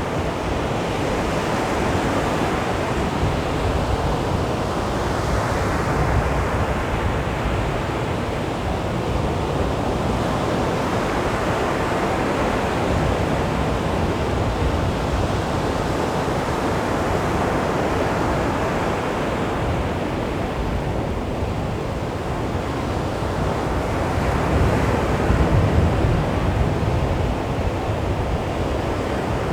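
Sea waves breaking and washing up on a beach, a steady surf that swells and eases every several seconds.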